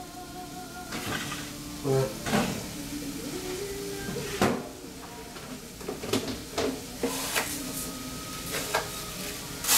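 Rummaging in a lower kitchen cabinet: scattered knocks and clatters as the cabinet door and the things inside are moved about, the loudest knock near the end.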